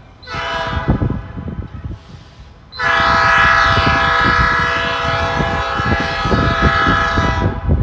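Diesel locomotive air horn on a freight train, sounding a short blast of about a second, then a long blast of about five seconds, over a low rumble.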